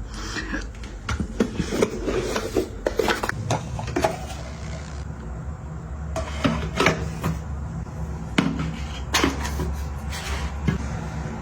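Containers and small items being handled and set down during restocking, with a string of irregular clicks, taps and light knocks and some rubbing and sliding, over a low steady hum.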